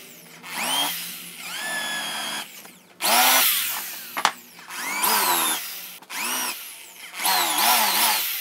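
Corded electric drill run in about six short trigger bursts, each spinning up with a rising whine and winding back down, as it bores shallow counterbores into a wooden stool seat for the screw heads. A single sharp knock a little past the middle.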